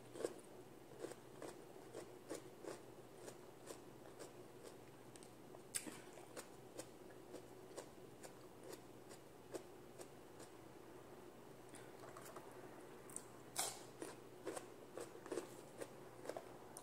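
Quiet mouth sounds of chewing, with scattered soft clicks from fingers picking rice and vegetables off a plate; a couple of sharper clicks come about six and thirteen seconds in, over a faint steady hum.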